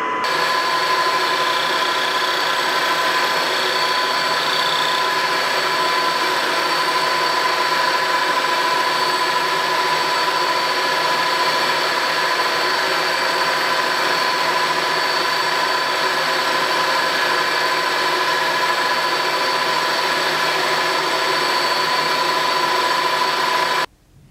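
Milling machine running a small end mill into a metal pommel block: a steady machine whine with an unchanging pitch that cuts off abruptly near the end.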